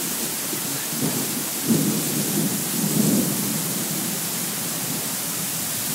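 Heavy thunderstorm downpour with strong wind: a steady hiss of pouring rain, with a low rumble swelling and fading over roughly the first half.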